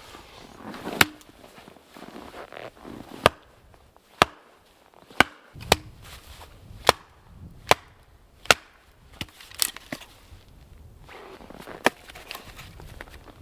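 Wood being chopped: about ten sharp, irregularly spaced strikes.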